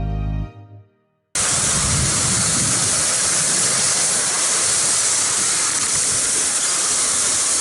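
Soft piano background music ends, and after a brief silence a loud, steady hiss cuts in abruptly and holds.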